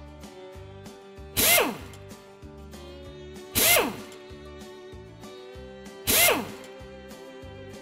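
Three short, loud mechanical whirring sound effects, each sliding down in pitch over about half a second, about two and a half seconds apart, dubbed in as a wheel is fitted to a toy tractor. Background music with a steady beat runs underneath.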